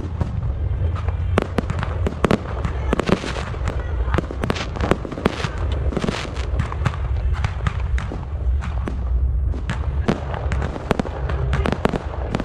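Fireworks display: aerial shells and comets bang and crackle in quick, irregular succession, several reports a second, over a steady low rumble.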